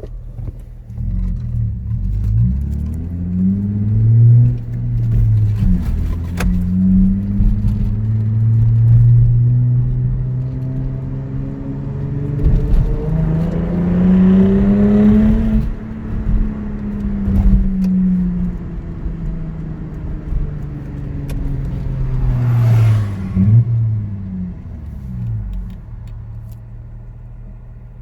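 Lexus IS250's 2.5-litre V6 exhaust heard from inside the cabin while driving. It pulls up through the gears, climbs to a peak about halfway through, then eases off and winds down to a low steady hum near the end.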